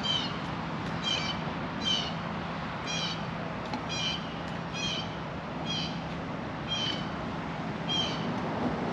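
An animal's short, high, downward-slurring calls, repeated about once a second.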